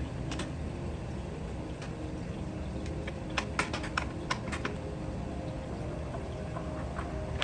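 Light, irregular clicks and taps of chair parts and hardware being handled and pushed into place during assembly, with a cluster of quick clicks about halfway through, over a steady low hum.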